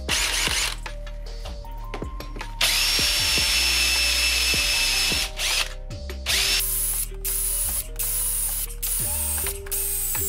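Handheld power drill boring into a white printed part clamped on aluminium extrusion, with a steady high motor whine. It runs in trigger bursts: a short one at the start, a longer run of a few seconds, then several short stop-start runs. Background music plays under it.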